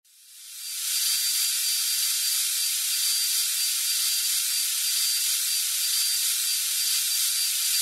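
Sound effect of a surgical power drill: a steady high hiss with a faint thin whine in it, fading in over the first second.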